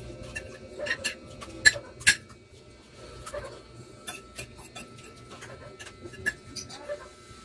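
Spoon and fork clicking and scraping against a ceramic plate while eating, in scattered short clinks, with two louder clinks about two seconds in.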